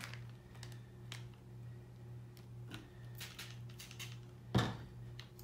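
Trigger spray bottle of sanitizer squirted a few times in short hisses over a small racking cane, then set down on the table with a knock, over a steady low hum.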